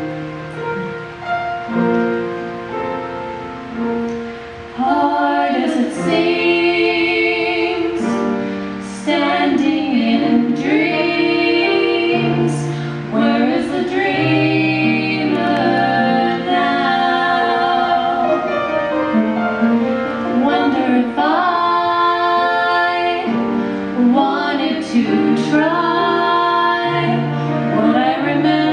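A piano plays an introduction for about five seconds, then two women's voices come in singing a song together with piano accompaniment.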